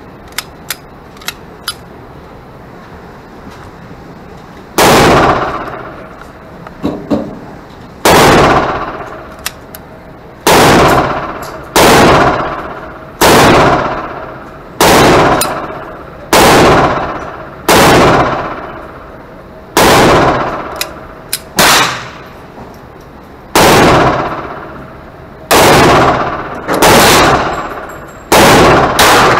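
Ruger SR22 .22 LR pistol fired in slow single shots on an indoor range, about fifteen shots a second or two apart, each trailing off in the room's echo. A few light clicks of the pistol being handled come before the first shot.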